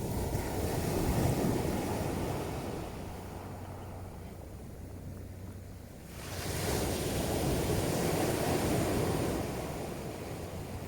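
Sea surf breaking and washing up a pebble beach. One wave's wash fades to a lull midway, then the next wave surges in about six seconds in.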